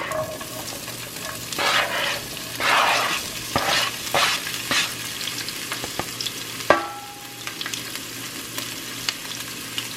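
Sliced red and green bell peppers and onions sizzling in olive oil in a frying pan and being stirred. The hiss swells louder a few times in the first half. A utensil knocks against the pan twice, and the second knock rings briefly.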